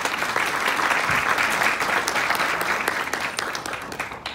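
Theatre audience applauding: a dense clatter of many hands clapping, which dies down near the end.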